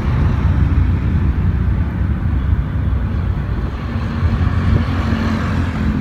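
Road traffic on a wide city road: a steady low rumble of passing vehicles. About two-thirds of the way in, a two-wheeler's engine hum comes in as it draws nearer.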